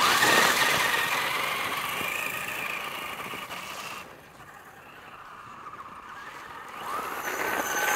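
Traxxas Stampede two-wheel-drive RC monster truck speeding off over snow and ice, its motor and drivetrain whining loudly at first and fading as it goes. It turns much quieter about four seconds in, then a rising whine builds near the end as it comes back.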